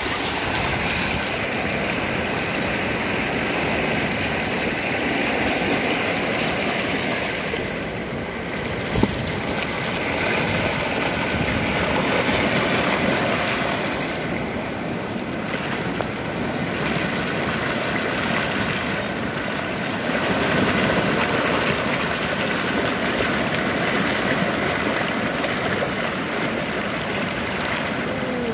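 Whitewater rapids in a stone-lined slalom canoe channel, churning with a steady rush. A single brief click about nine seconds in.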